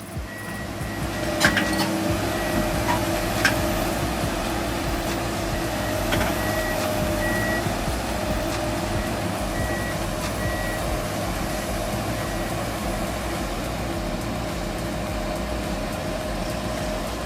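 Heavy machine's engine running steadily under load, with a reversing alarm beeping on and off. A couple of sharp clanks come in the first few seconds.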